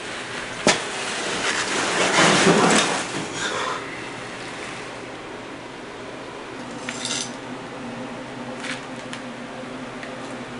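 Scuffle and clatter as a man is overpowered and slumps onto a basement floor strewn with debris: a sharp knock, then a few seconds of loud scuffling, followed by a few footsteps on the concrete floor near the end.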